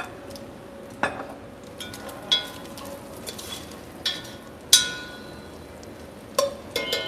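Diced bacon sizzling as it renders in an enamelled Dutch oven, stirred with a utensil that knocks and clinks against the pot about four times, the sharpest clink just under five seconds in.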